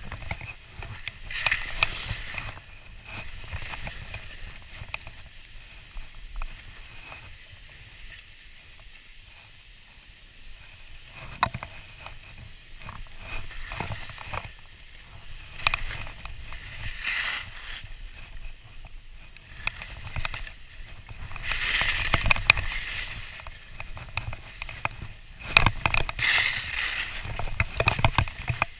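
Skis hissing and scraping through snow in a string of turns, coming in surges that are loudest in the second half, over a steady low rumble.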